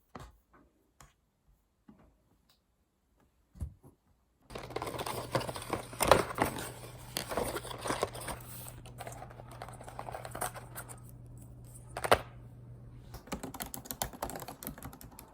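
Typing on a laptop keyboard, the newly replaced MacBook Pro keyboard: a few separate key clicks at first, then steady fast typing from about four seconds in, over a low steady hum that stops near the end.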